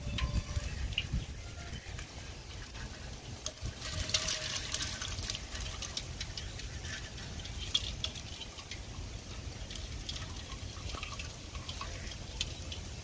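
Water dripping and splashing as a wet nylon net full of small live fish is shaken out into a plastic bucket, with a dense flurry of pattering splashes about four seconds in and scattered sharp ticks and drips after.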